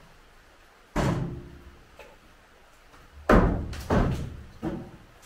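Timber formwork being knocked loose from the underside of a concrete ceiling slab with a long pole: one loud wooden bang about a second in, then four more knocks in quick succession past the three-second mark.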